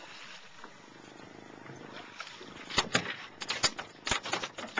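A low, fast purring rattle, then from a little under three seconds in a handful of sharp knocks and clicks, the loudest of them close together.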